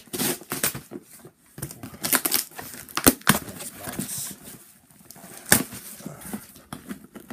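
A cardboard delivery box and its packaging being torn open by hand: a run of sharp rips and crinkling, with the loudest rips about three seconds in and again about five and a half seconds in.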